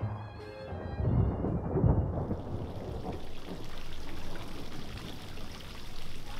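A deep rumble of thunder under the last notes of orchestral music as they fade out, then a steady hiss of rain from about two seconds in.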